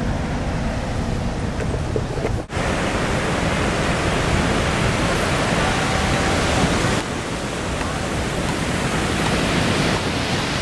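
A steady rushing noise of outdoor ambience, broken by a sudden short cut about two and a half seconds in and a drop in level about seven seconds in.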